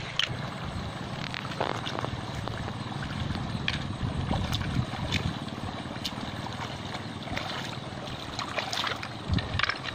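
Shallow river water running over stones, with a steady rush and low rumble, broken by short splashes and knocks of someone wading and handling a bowl in the water, several coming close together near the end.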